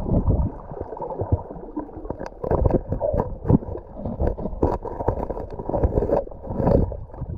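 Muffled underwater sound heard through an action camera's waterproof housing: a low rumble of moving water with many scattered clicks and knocks.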